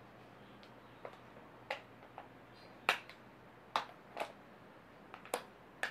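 Scattered sharp clicks and taps of handling, about nine at irregular spacing, the loudest about halfway through, over a faint steady low hum.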